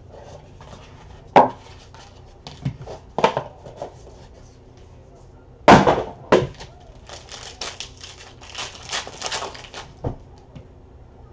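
Trading cards, a card box and packs handled on a table: a few sharp knocks and clicks, the loudest about six seconds in, then a run of quick rustling as the cards are flicked through near the end.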